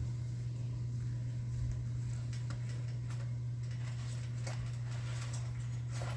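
Steady low hum, with faint light taps and ticks scattered through it from about two seconds in.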